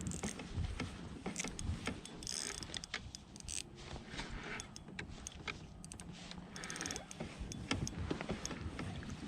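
Irregular mechanical clicking and rattling over a steady low noisy background, with two brief buzzing whirs, one a couple of seconds in and one about seven seconds in.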